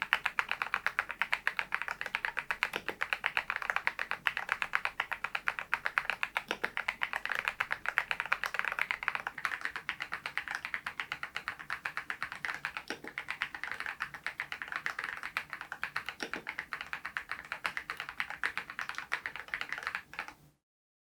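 Continuous typing on an RK R99 mechanical keyboard fitted with its stock cream switches: a steady, rapid stream of key clacks that cuts off suddenly near the end.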